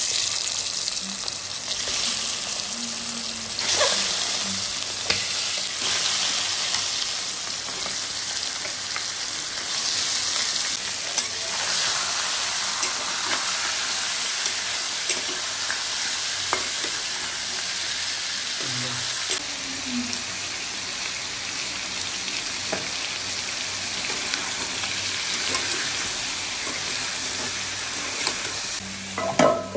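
Raw chicken pieces sizzling in hot oil in a kadai, a loud steady frying hiss. A metal ladle stirs and turns the pieces, with occasional light clicks and scrapes against the pan.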